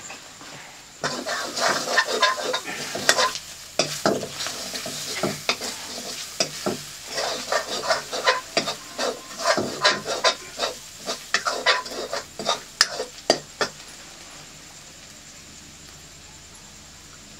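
Metal ladle scraping and clinking against a steel wok, stirring food frying in hot oil that sizzles underneath. The stirring stops about fourteen seconds in, leaving only the steady sizzle.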